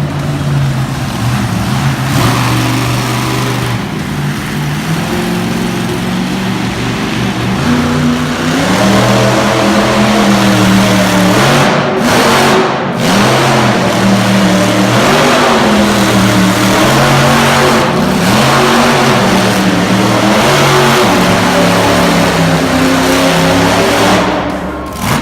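Monster truck engine running loud and steady, then revved up and down over and over from about a third of the way in, its pitch swinging every second or two.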